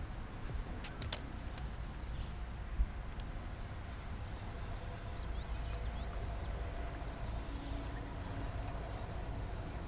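Outdoor river ambience: a steady low rumble with a quick run of bird chirps in the middle, a click about a second in and a single knock near three seconds.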